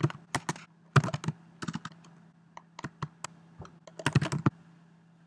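Typing on a computer keyboard: irregular groups of key clicks, with a quick flurry about four seconds in before the typing stops.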